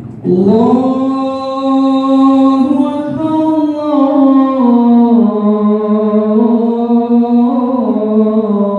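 A man's voice chanting the adhan, the Islamic call to prayer, alone. It is one long, ornamented phrase that starts a moment in, held on a note and then stepping down in pitch.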